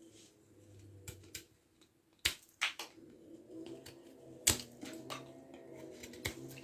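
About seven sharp clicks and knocks at irregular intervals, the loudest about two and about four and a half seconds in, from a folding pocket knife and a thin wooden branch being handled.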